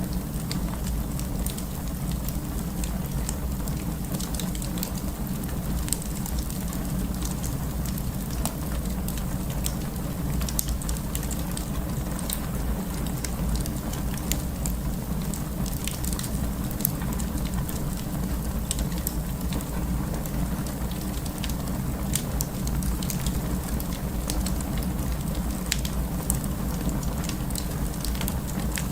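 Wood fire burning: a steady low rumble of flames with frequent, irregular sharp crackles.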